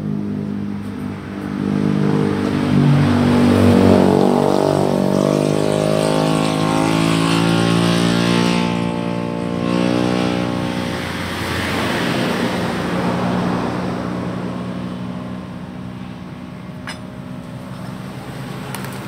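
Motorcycle engine running and revving: its pitch climbs over a few seconds, holds high, then falls back to a lower steady run.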